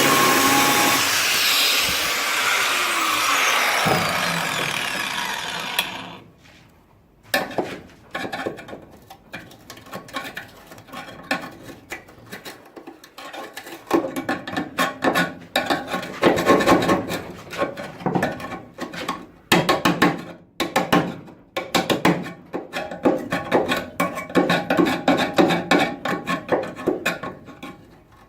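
A power tool on the car's body steel runs and spins down, stopping about six seconds in. Then comes hand scraping in irregular rasping strokes: rust being scraped out from under a seam that has been slit open.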